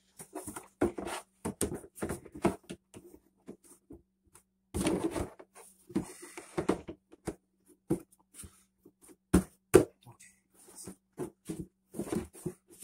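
Molded toddler-bed rails and end panels knocking and clacking as they are pushed and fitted together by hand. The knocks are irregular and sharp, with two louder ones close together about two-thirds of the way through.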